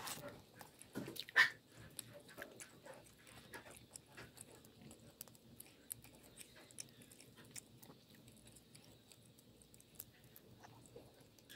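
Spicy gochujang sauce bubbling and crackling in a cast-iron skillet, a steady run of small irregular pops and clicks, with one louder sound about a second and a half in.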